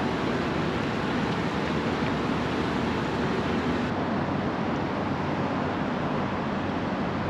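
Steady rushing background noise, even in level throughout, with no distinct clicks, knocks or voices.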